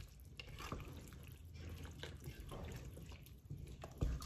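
Wooden spatula stirring a creamy macaroni and vegetable soup in a nonstick pan: faint wet sloshing and squelching, with a soft knock near the end.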